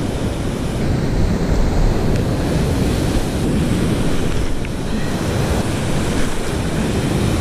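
Rough surf breaking and washing through the shallows as a steady, loud rush of water, with wind buffeting the microphone in a heavy low rumble.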